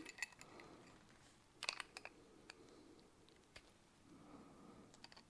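Near silence broken by a few faint, scattered clicks and light taps of hand tools and small metal carburetor parts being handled during disassembly.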